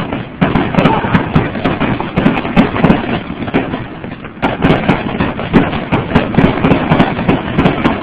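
Fireworks display: a dense, continuous run of bangs and crackles as fireworks launch and burst, easing off briefly about four seconds in.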